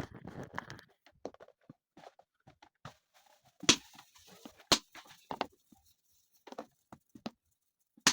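Irregular knocks, taps and clicks from cooking chapati over a wood fire, with a brief rustle at the start and two louder knocks about a second apart midway.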